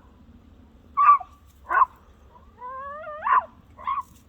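Dog barking in short single barks, four in all, with a rising whine that runs straight into the third bark: an excited dog trying to get at an animal down a hole.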